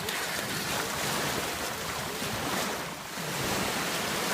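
Surf washing on the beach with wind buffeting the microphone: a steady rushing noise that dips briefly about three seconds in.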